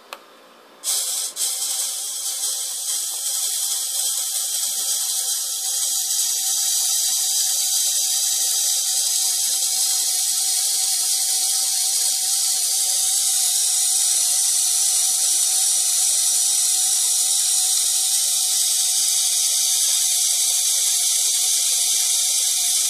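Small toy electric motor (a Takara Tomy Zoids Barigator motor unit) switched on with a click about a second in, then whirring steadily as it drives the plastic links of a model chainsaw chain around the bar. It is a high, hissing whir with a steady hum and grows a little louder over the first several seconds.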